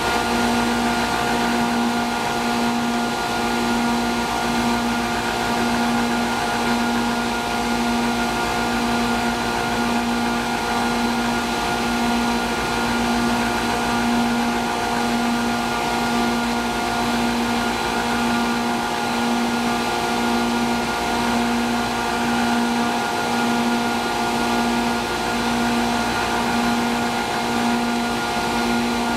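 Industrial air compressor running loaded at about 123 psi: a steady machine drone with fixed tones, and a low hum that throbs at an even pace, a little faster than once a second.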